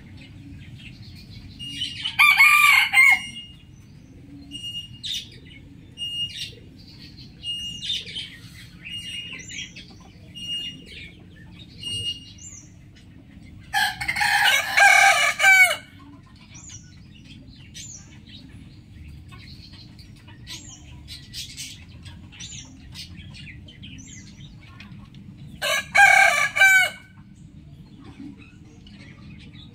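Rooster crowing three times: about 2 seconds in, in the middle, and near the end, each crow lasting a second or two. Short, fainter bird calls and chirps come between the crows.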